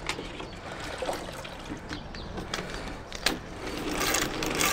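Spin mop being worked in a plastic bucket of fresh rinse water: water sloshing and trickling, with a few light knocks, the noise growing louder near the end.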